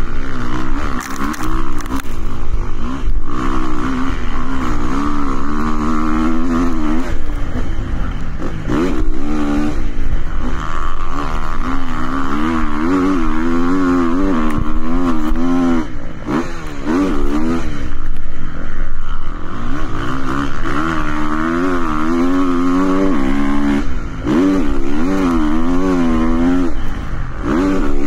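KTM motocross bike engine heard from the rider's onboard camera during laps, revving hard and falling back over and over as the rider works the throttle and gears. The revs drop away briefly every several seconds.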